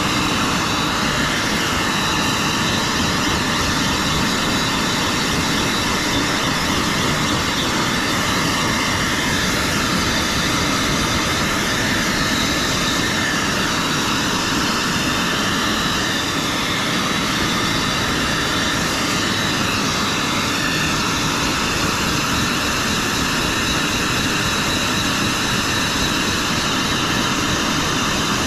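A dog grooming blower dryer running continuously at a steady speed, a loud rushing of air with a steady high whine from its motor.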